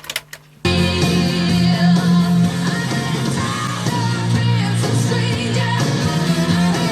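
A few mechanical clicks, then a rock song with a singer starting abruptly about half a second in and playing on loudly: a cassette played back on the serviced Sony TC-WE305 tape deck through an amplifier, to check its sound.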